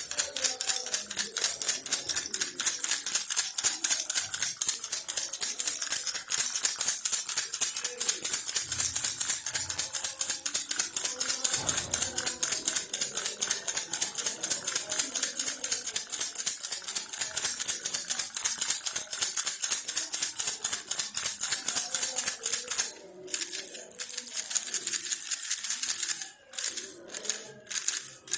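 Baby rattle shaken rapidly and continuously, a dense high rattle of many small clicks, with a few brief pauses near the end.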